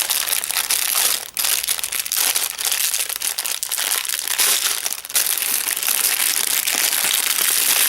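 Packaging being handled and crinkled, with a loud, continuous rustle that dips briefly about a second in and again near the middle.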